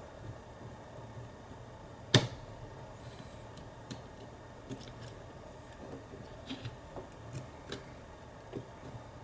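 Small metal clicks and taps of tools working at a lock's retaining clip that is caught in its grooves and won't come off, with one sharper click about two seconds in.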